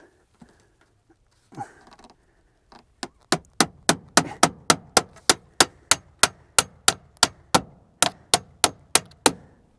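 Claw hammer driving nails through aluminum fascia into the wood behind: a quick, even run of about twenty sharp strikes, roughly three a second, starting about three seconds in.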